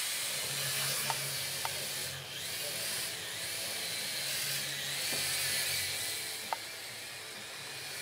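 FPV freestyle quadcopter's propellers whining, the pitch rising and falling as the pilot works the throttle and the drone swoops past, fading twice as it flies farther off.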